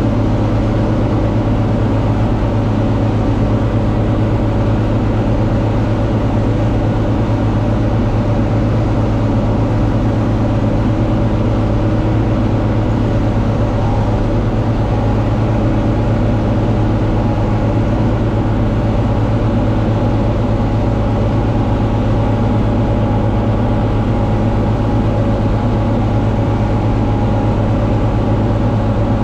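John Deere 4250 tractor's six-cylinder diesel engine running at a steady, even drone while it drives a Kuhn VB 3155 round baler during baling.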